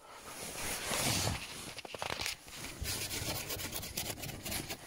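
Close rustling and rubbing as someone moves about and handles things, with a run of quick scraping strokes near the end.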